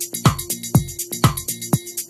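Background electronic dance music with a steady beat, a deep drum hit about twice a second.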